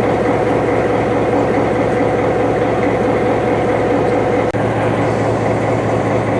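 A heavy engine running steadily at idle, with a constant low hum and a steady tone through the noise.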